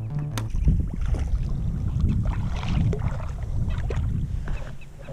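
Water splashing and sloshing around a fishing kayak, with wind rumbling on the microphone.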